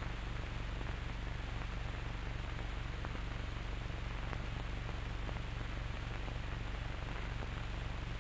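Steady hiss and low hum of an old cine film soundtrack, with a few faint crackles scattered through it.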